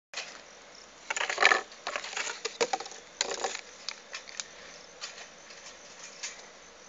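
Small wire bird cage rattling and clicking as it is handled, a busy clatter in the first few seconds, then scattered light clicks.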